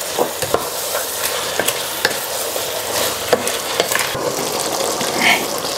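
Chicken, onion and tomato masala sizzling in a pot while a wooden spatula stirs it, with frequent irregular scrapes and knocks of the spatula against the pot.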